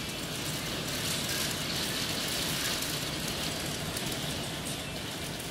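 Hailstorm: hail and rain falling hard onto a concrete patio and timber fence, a dense steady hiss of impacts that swells a little about a second in and eases again.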